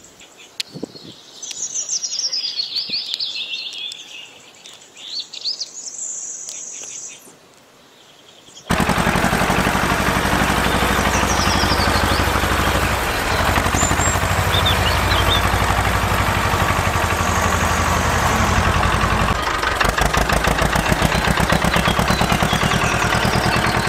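Birds chirping, with a few light clicks as small bricks are set into a toy trailer. About nine seconds in, a loud, fast-chugging tractor engine sound starts suddenly and runs on, with bird calls still faint over it.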